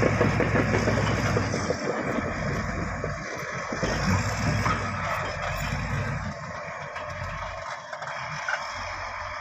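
Diesel engine of heavy earthmoving machinery running, with a strong low rumble for the first second and a half, then quieter and uneven.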